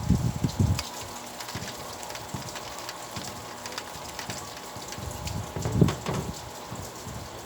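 Rain falling steadily, a constant hiss with many separate drops ticking. Louder low thuds come at the start and again about six seconds in.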